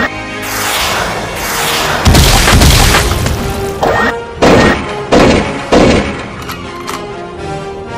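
Soundtrack music with dubbed-in battle sound effects: a rising rush ending in a heavy boom about two seconds in, then four sharp gunshot bangs roughly half a second apart.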